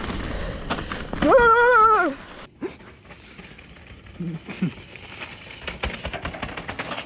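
Wind rush and tyre noise from a mountain bike riding down a dirt trail, with a drawn-out, wavering vocal call about a second in. After a sudden break, quieter crunching and ticking of tyres on dirt as a rider comes down the jumps, with a brief voice.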